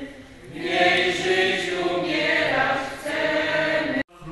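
A choir singing a slow hymn in Polish, in long held phrases. The singing breaks off abruptly near the end.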